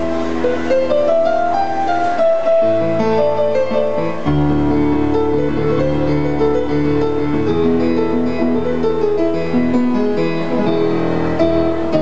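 Live band music led by an electronic keyboard playing sustained chords and a melody over a low bass line. The bass drops out about two seconds in and comes back about two seconds later.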